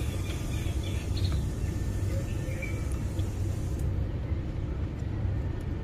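Steady low background rumble, with a few faint light clicks from hands fitting the carbon brushes and armature into an opened plastic drill housing.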